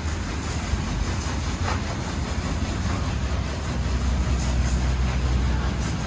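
Hero Splendor motorcycle running on the move: a steady, loud engine and road rumble with wind noise across the microphone.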